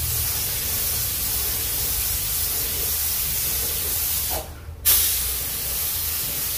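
Gravity-feed spray gun with a 1.7 mm nozzle hissing steadily as it sprays a wet coat of polyurethane primer on a car panel. The hiss stops for about half a second, two-thirds of the way through, as the trigger is let go, then comes back sharply.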